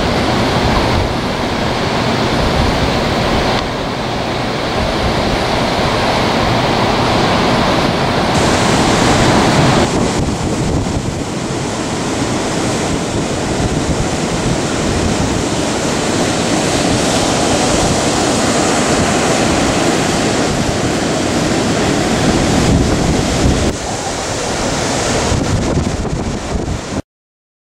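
Big storm surf breaking continuously, with strong wind buffeting the microphone. The sound cuts off abruptly near the end.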